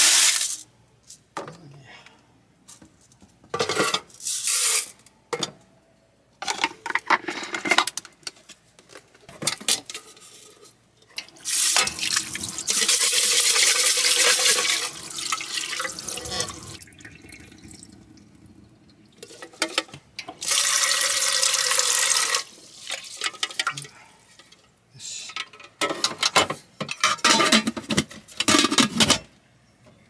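Water running from a tap into a sink, turned on and off several times, with two longer runs in the second half.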